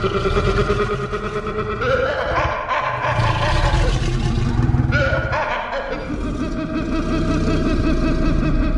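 Designed creature roar for the Dryptosaurus aquilungus: a long, layered roar with a deep rumble under several pitched, howling tones. It shifts in character about two, five and six seconds in.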